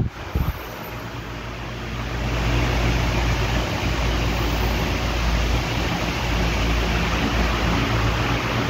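Portable air cooler's fan running: a steady whooshing hiss over a low hum. It grows louder over the first two seconds, then holds level.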